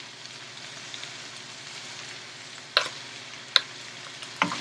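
Onions and black beans sizzling steadily in a stainless steel frying pan, with a few sharp knocks of a wooden spatula against the pan in the second half.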